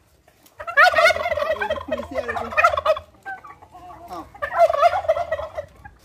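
Domestic turkey toms gobbling: a long, rapid warbling gobble starting about half a second in and lasting a couple of seconds, then a shorter gobble near the end.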